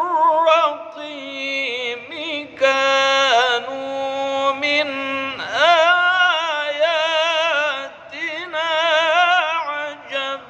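A male voice chanting Qur'an recitation in the melodic tajwid style, drawing out long, ornamented notes with a wavering pitch, in phrases broken by short pauses for breath.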